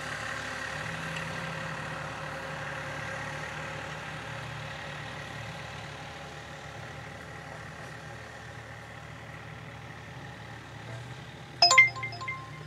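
Vintage Massey Ferguson tractor engine running steadily while it pulls a sand rake, growing gradually fainter as it moves away. Near the end a loud burst of bright chiming tones cuts in.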